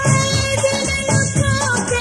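South Asian dance song playing: a singer holds a long note with a wavering ending over a steady drum beat.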